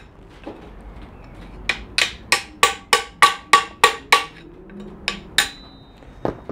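Hammer striking a steel drift held against the pressed-on end cap of a Mitsubishi 3000GT electronic strut, tapping the cap off. It begins with a quick run of about ten sharp metallic taps, roughly three a second, then three more spaced taps, one of which leaves a brief ring.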